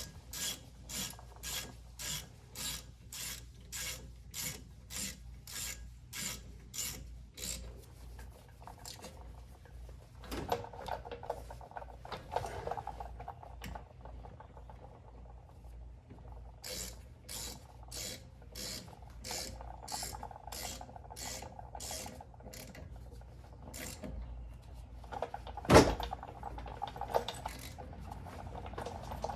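Ratchet wrench with a 14 mm socket tightening brake caliper bolts: short bursts of pawl clicking on each back-swing, about two a second, pausing midway and starting again. One loud sharp metal knock near the end.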